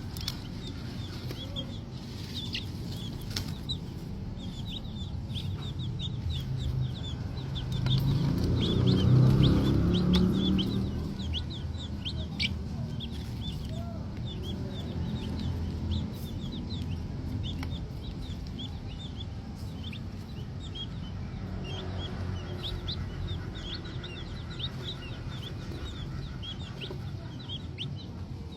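Green junglefowl chicks peeping: many short, high, downward-sliding cheeps that keep coming. Under them runs a low rustling, which swells into a louder scuffle about eight to eleven seconds in.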